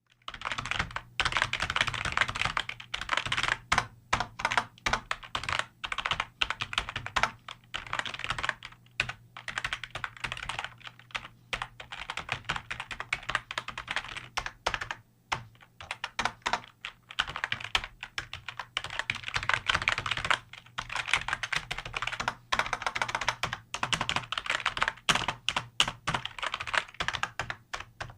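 Computer keyboard being typed on quickly: dense runs of keystroke clicks with brief pauses between runs, over a faint steady low hum.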